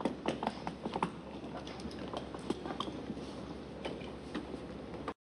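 Irregular light clicks and taps of a marionette's feet stepping on a wooden stage floor, thick in the first second and thinning out after.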